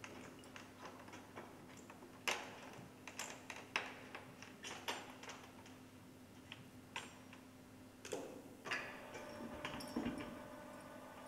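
Scattered sharp metal clicks and clinks from loudspeaker rigging hardware as locking pins and links are released to detach a d&b subwoofer from its flying frame, with a short scrape and a knock near the end.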